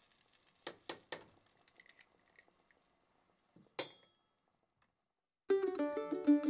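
A few light clicks of a metal spoon against a stainless steel pot, then one sharper metallic clink with a short ring about four seconds in. Plucked-string music starts about five and a half seconds in and is the loudest sound.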